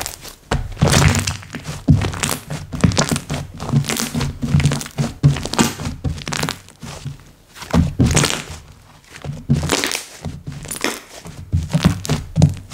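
Hands squishing, poking and folding slime, giving an irregular run of pops and clicks several times a second.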